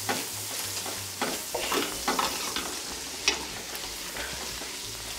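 Ground lamb, vegetables and tomato paste sizzling in a stainless steel stockpot over a hot gas burner while a spatula stirs and scrapes through them, cooking out the paste's acidity. One sharper knock about three seconds in.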